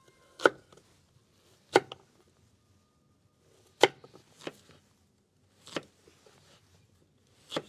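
Knife chopping potatoes on a cutting board: about six separate sharp chops, spaced unevenly one to two seconds apart.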